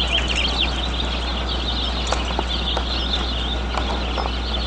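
Many birds chirping and chattering at once, a dense, continuous flock chorus of short high calls, over a steady low hum.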